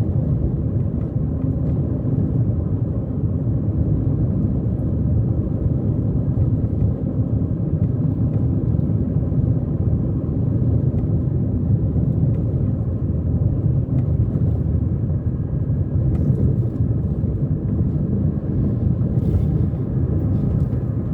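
A car driving, with a steady low rumble of engine and tyre noise.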